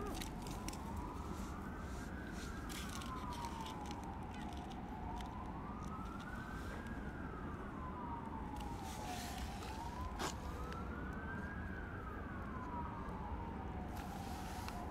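A siren wailing, its pitch rising and falling slowly, about once every five seconds.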